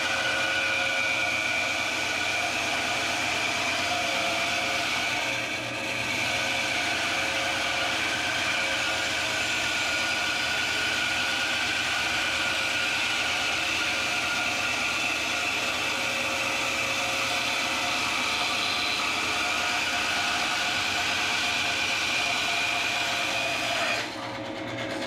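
Rikon 10-3061 10-inch bandsaw running with a 1/2-inch resaw blade while cutting lengthwise through an old pine 2x4, a steady loud whine over the noise of the cut. About a second before the end the noise drops off sharply as the saw is shut off.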